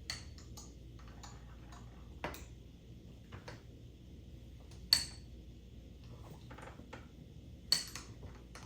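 Scattered light clicks and taps of small hard plastic pieces being handled, four of them louder, two with a brief high ring.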